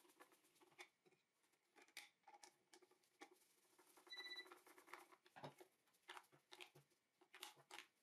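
Faint clicks and taps of the multimeter's plastic case and battery cover being handled and fitted back together, with a brief faint high tone about four seconds in.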